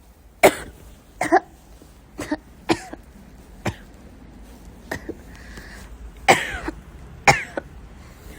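A girl coughing: a string of short, sharp coughs about a second apart, some coming in quick pairs.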